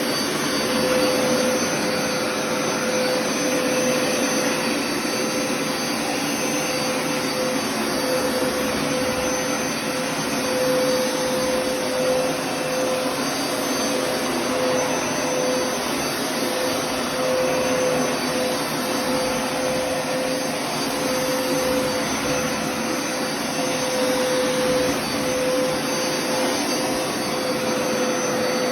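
Vacuum motor of a floor-cleaning machine running steadily: a constant whine over an even rushing hiss of suction.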